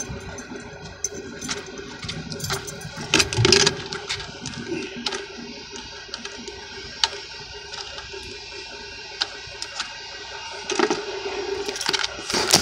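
Scattered clicks and knocks of a radio-controlled car being handled and its plastic body taken off on asphalt, the loudest cluster a little over three seconds in, over a steady faint hum.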